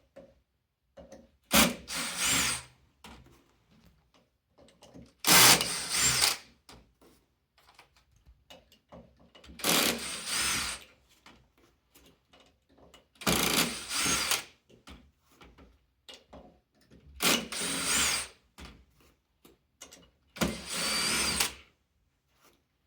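Phillips screw gun run in six short bursts, each about a second long, backing out the six screws that hold the outer ring of a golf caddy wheel, with faint clicks of handling between the bursts.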